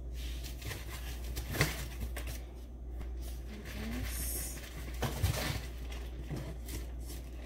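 Cardboard shipping box being unpacked by hand: rustling and scraping of cardboard as a flat insert is lifted out, with a sharp knock about a second and a half in and another about five seconds in.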